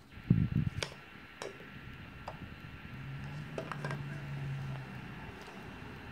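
A couple of low thumps at the start, then a few light clinks of a metal spoon against a saucepan as a shrink-sleeved Easter egg is dipped into hot water. A low steady hum lasts about two seconds in the middle.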